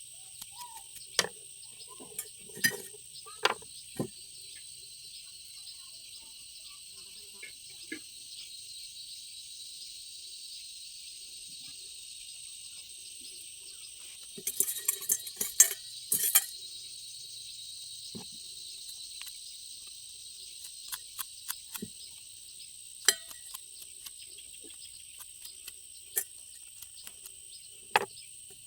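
Scattered sharp metallic clicks and clinks, with a quick cluster of them about halfway through, over a steady high chirring of insects.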